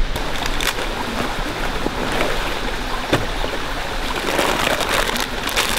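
Steady rush of flowing creek water, with a few scattered clicks.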